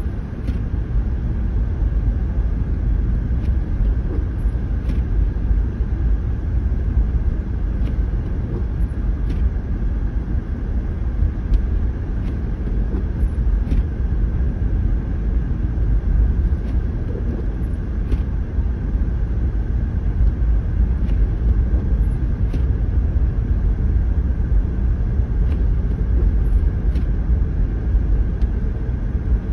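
Steady low road and tyre rumble inside a car cabin, driving slowly on a snow-covered road. A faint tick repeats about every second and a half, timed like the windshield wiper strokes.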